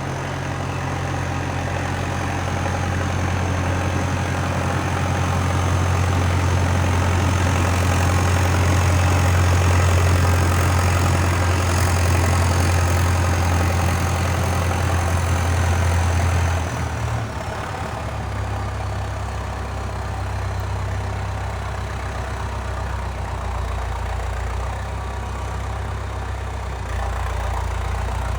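Valtra 815 backhoe loader's diesel engine running steadily at raised revs with a thin high whine, then dropping back to a lower, steady idle about two-thirds of the way through.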